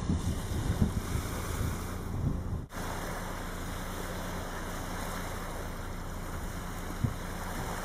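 Small waves washing on a sandy beach, with wind buffeting the microphone in low gusts for the first few seconds. The sound cuts out for an instant about three seconds in, then the surf carries on as a steady wash.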